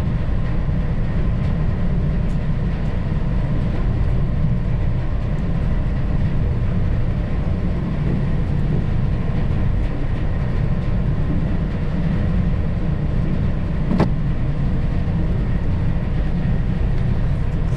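Steady low drone of a ship's engines and machinery heard on deck, with a faint steady whine above it and one sharp click late on.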